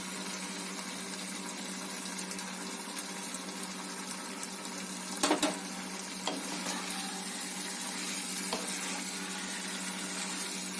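Gravy with fried fish pieces sizzling steadily in a pan on the stove, under a steady low hum. A few short knocks sound in the middle, the loudest about five seconds in.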